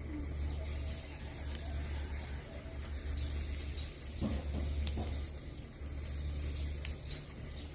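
Small birds give short chirps now and then over a steady low rumble, with a knock about four seconds in and a couple of sharp clicks later on.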